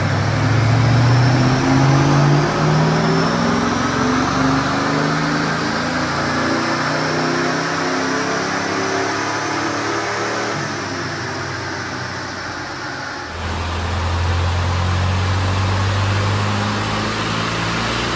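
Rover 3.5-litre V8 of a 1975 Land Rover 101 Forward Control running under load on a rolling-road dyno, with a faint high whine rising in pitch as the engine pulls. About thirteen seconds in, the sound changes abruptly to a modified turbodiesel Land Rover engine running steadily on the dyno.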